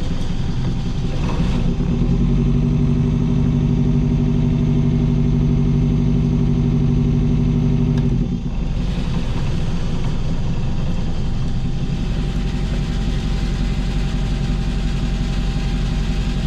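Hire cruiser's inboard diesel engine running at low speed. Its note grows stronger and steadier from about two seconds in, then drops back at about eight seconds.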